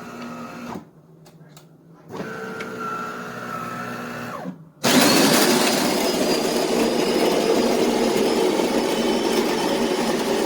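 De'Longhi ESAM3300 Magnifica super-automatic espresso machine working through a cycle: a motor hums briefly, stops, hums again for a couple of seconds, then a louder steady mechanical whirring with a thin high whine starts about five seconds in.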